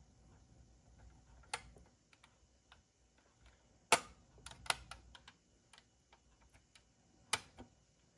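Light clicks and taps of a Bburago 1/18 Ferrari Monza SP1 diecast model's opening parts being handled: the door and trunk lid snapping shut and the hood being worked. The clicks come scattered, the loudest about four seconds in, with a quick run of smaller ones just after.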